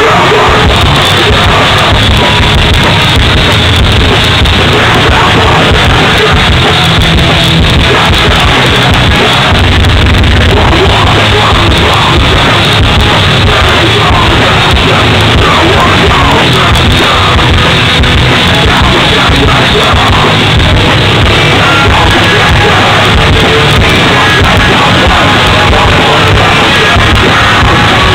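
A hardcore band playing live, with electric guitars and drums under yelled vocals. Loud and unbroken, the recording sits near full level throughout.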